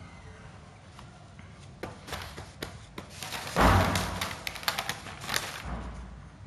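Paper sheets rustling and a few light knocks on wooden exam desks and benches as a student gets up and the sheets are handled. The loudest rustle comes a little past halfway.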